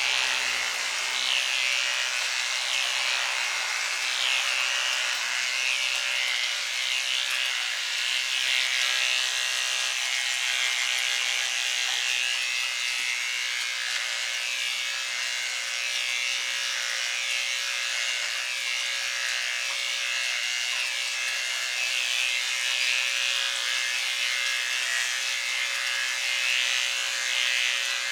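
Electric hair clippers running with a steady buzz as they cut through a dog's hair; the groomer finds these clippers not very powerful.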